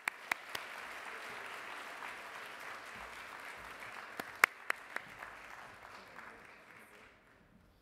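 Audience applauding, with a few sharp, loud claps close to the microphone standing out, several of them around the middle; the applause fades away near the end.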